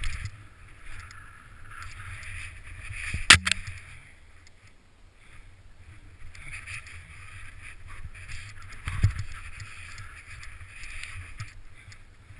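Snow hissing in swells under a rider turning downhill through deep snow. A sharp knock about three seconds in and a dull thump about nine seconds in.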